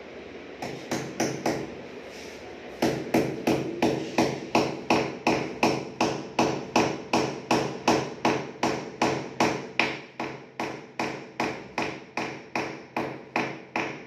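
A hammer tapping a nail into PVC wall panelling: four light starting taps, a short pause, then steady, even blows at about two and a half a second.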